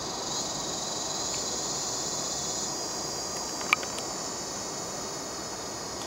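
Steady high-pitched chorus of tropical insects, louder in the first half, over a steady rushing background. A single sharp click about halfway through.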